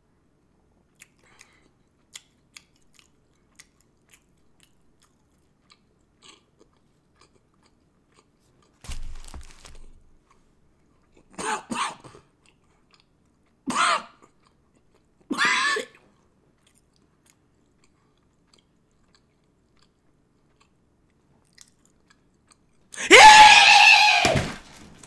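Faint chewing of a burger, with small clicks, then a few short vocal sounds through the middle, and near the end a loud yell.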